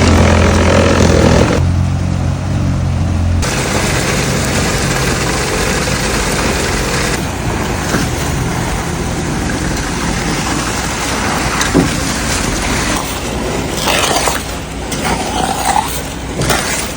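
Concrete pump truck running during a concrete pour into ICF forms. A loud steady engine hum drops away after about three seconds, leaving a continuous noisy rush of concrete being pumped and poured.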